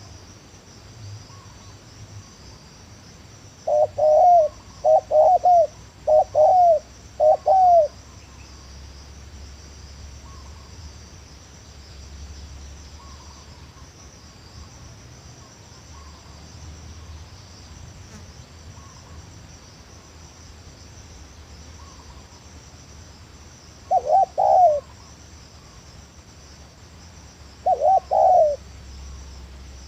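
Spotted dove cooing: a phrase of four coos about four seconds in, then two short coos near the end, over steady cricket trilling.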